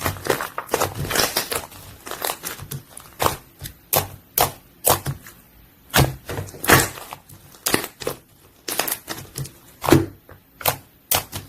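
Purple slime being squeezed and pressed by hand, giving off a string of irregular sharp, sticky pops and clicks, thickest in the first couple of seconds.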